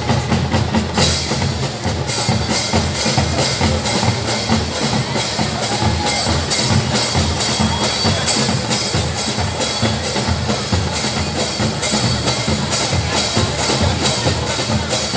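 Fanfarra marching band playing: drums and percussion, bass drum included, keep a steady fast beat.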